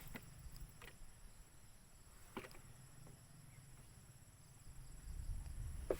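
Faint outdoor ambience: a steady high insect drone over a low rumble that grows louder about five seconds in, with a few soft clicks, the sharpest near the end.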